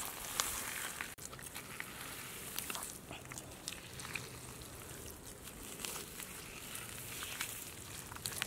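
Bare hands digging and squelching through wet mud, with many small irregular wet clicks and crackles.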